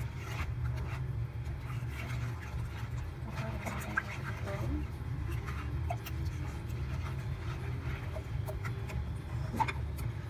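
A plastic spoon stirring thick blended bread-and-milk pudding batter in a non-stick saucepan, with soft scrapes and a few light knocks against the pan, over a steady low hum.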